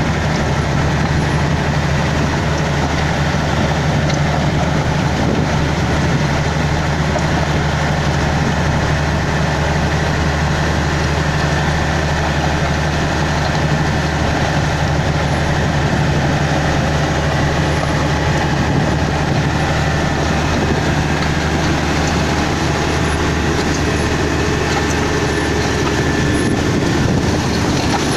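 Komatsu GD555 motor grader's diesel engine running steadily: a constant low drone under a broad rushing noise, the drone changing slightly near the end.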